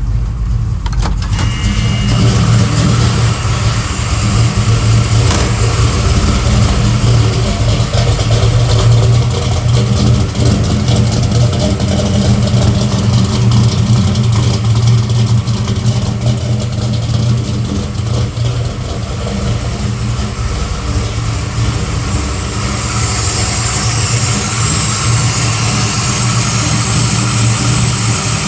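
Fuel-injected 440 cubic inch V8 of a 1974 Plymouth Road Runner idling on its own just after a cold start, fed by a FiTech MeanStreet throttle-body injection system. The idle is uneven, which the owner puts down to a cam too radical for the system to hold a consistent idle. A high hiss joins near the end.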